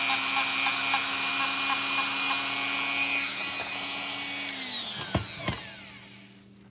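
A small high-speed rotary tool runs steadily with a whine while the Glock trigger bar's metal contact surface is polished smooth. About four and a half seconds in, it is switched off and its pitch falls as it winds down, with two light knocks at the same time.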